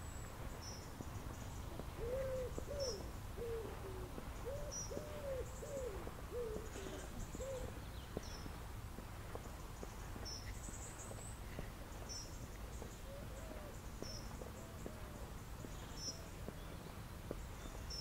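A pigeon cooing: a run of low, arched coos from about two seconds in to eight seconds, then a fainter run later on. A small bird gives a short high chirp about once a second, over a steady low rumble of background noise.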